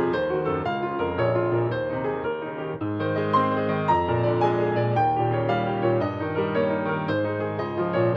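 Background music led by piano, with a steady flow of notes over sustained low bass tones.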